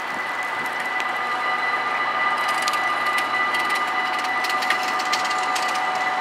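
Dutch level-crossing warning bells start ringing as the crossing activates for an approaching train, with more bells joining in over the first few seconds. A quick run of clicks comes in about two seconds in.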